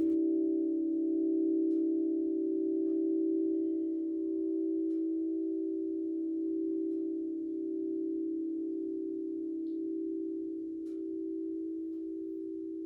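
Gorin hensho bell ringing on after a strike: a long, steady tone with a few higher overtones, fading slowly and pulsing gently. A few faint crackles from a campfire sound underneath.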